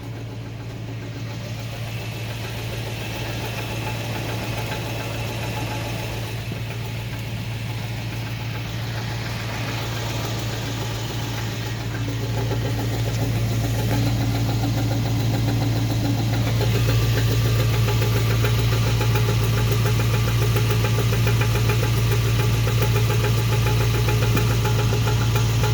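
2000 Toyota Tundra idling with a repeating knock from underneath the truck, getting louder about halfway through. The owner can't tell whether the knock comes from the engine or the transmission.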